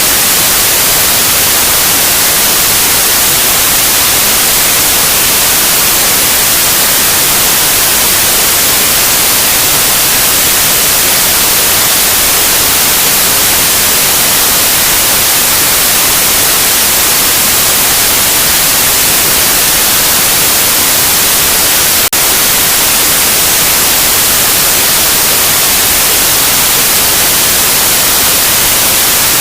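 Loud, steady white noise: an even hiss, brightest in the treble, with one tiny break about three-quarters of the way through.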